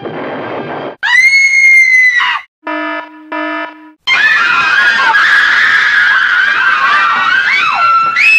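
A string of comic sound effects: a brief rumbling blast, then a loud held scream, two short horn-like notes, then a baby wailing with overlapping, wavering cries, and a rising scream starting right at the end.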